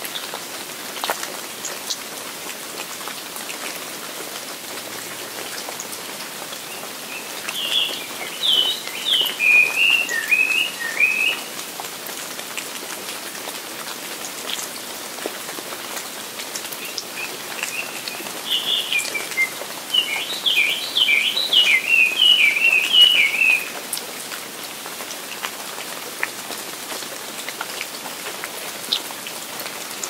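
Steady rain falling, with scattered drop ticks. A songbird sings two long phrases of quick, varied notes, the first about a quarter of the way in and the second a little past the middle, louder than the rain.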